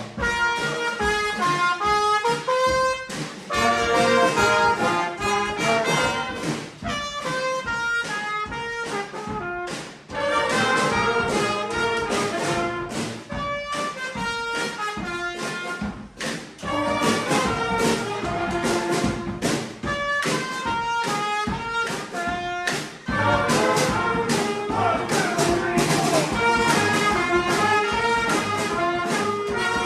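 Community street band playing brass-led dance music: trumpets and trombones in unison riffs over a steady drum beat, with a couple of brief breaks in the tune.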